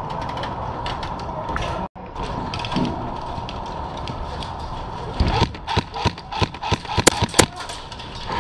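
Airsoft gunfire: an irregular run of sharp clicks and cracks that starts about five seconds in and is densest near the end, over a steady background of movement and wind.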